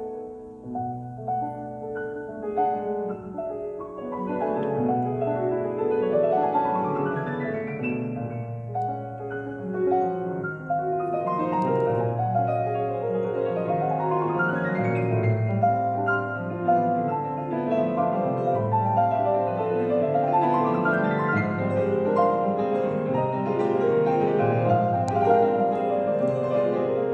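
Solo grand piano playing a flowing piece. Three times, a quick run of notes rises up the keyboard, and the playing grows fuller about four seconds in.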